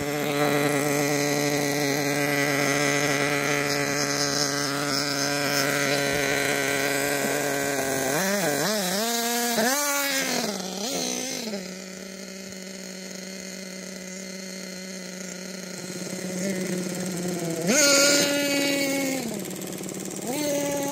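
1/8-scale nitro RC buggy's two-stroke glow engine idling steadily. About eight seconds in, its throttle is blipped in a quick series of rising and falling revs, and near the end it is revved up briefly twice more.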